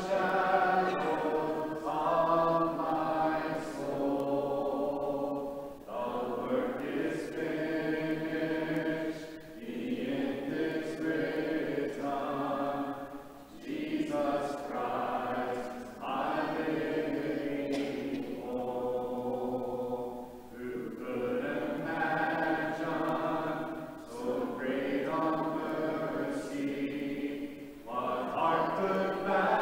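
Church congregation singing a hymn a cappella in four-part harmony, without instruments, phrase by phrase with short breaks between lines.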